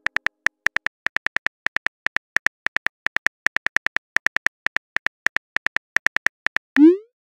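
Phone keyboard key-click sounds as a text message is typed, short sharp taps at about five a second. Near the end, a brief rising swoosh, the loudest sound, as the message is sent.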